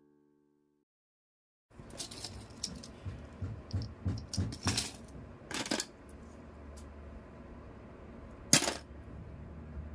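A bundle of thin metal painting sticks with painted plastic model parts clipped on, clicking and clattering against each other as it is handled and laid down on a cutting mat. Irregular clicks start a couple of seconds in, with one sharper click near the end over a low steady hum.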